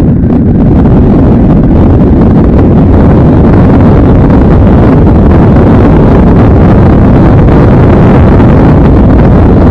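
A vehicle on the move with heavy wind buffeting the microphone: a loud, steady low rumble of road and wind noise.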